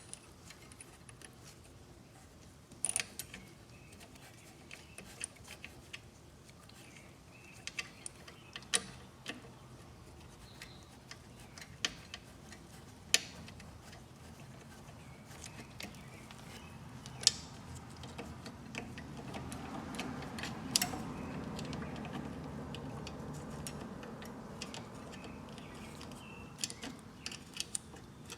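Scattered small metallic clicks and taps of hands fitting the carburetor's mounting nuts and handling parts on a lawnmower engine, with a soft low handling noise building in the second half.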